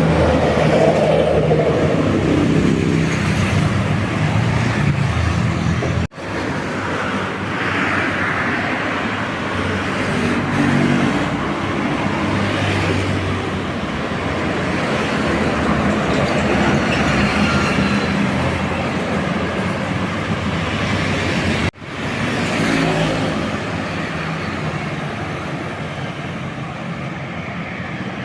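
Buses driving past on a road: diesel engines running with tyre and traffic noise, the engine note falling in pitch over the first few seconds as one goes by. The sound cuts off abruptly and restarts twice, about six seconds in and again about twenty-two seconds in.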